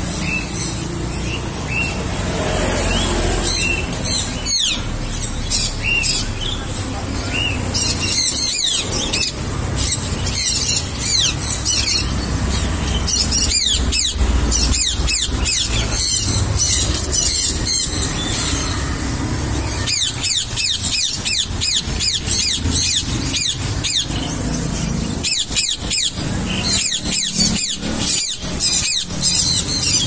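Parrots squealing: runs of quick, high-pitched, falling squeals, coming in bursts several times.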